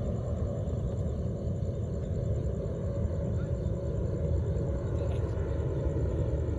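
Steady low rumble of outdoor background noise, uneven but without distinct events.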